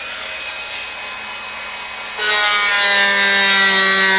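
Handheld rotary tool running and cutting a notch into the plastic case of a garage-door remote. It starts at once; about two seconds in it gets louder as the bit bites into the plastic, its pitch sagging slightly under the load.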